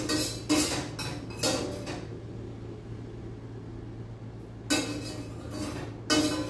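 Metal skimmer clinking and scraping against a stainless steel pot and a glass bowl while cooked ground beef is scooped across: about four clinks in the first two seconds, then two more around five and six seconds in.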